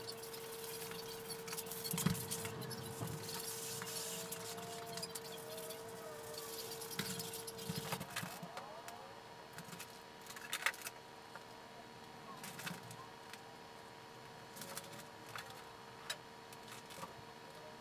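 Large sheets of paper rustling and crinkling as they are handled, then, after about eight seconds, sparser light taps and rubbing as fabric is measured out on a cutting mat. A faint steady hum lies underneath.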